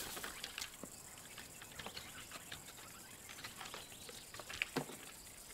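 Faint, scattered scratches and clicks of a lion's claws gripping and scraping tree bark as it hauls itself up the trunk, with one louder scrape near the end.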